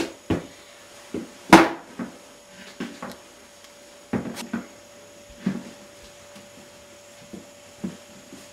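Irregular knocks and thumps of handling and movement in a small room, the loudest about one and a half seconds in, over a faint steady hum.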